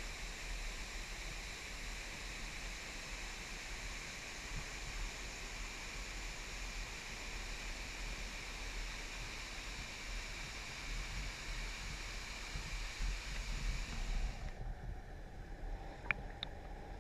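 Waterfall rushing in a steady hiss, with wind buffeting the microphone. About fourteen seconds in, the water sound drops away abruptly, leaving the wind rumble and a few sharp clicks.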